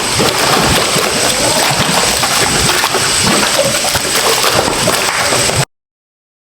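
Liquid splashing and sloshing, a steady dense spatter, cutting off abruptly near the end.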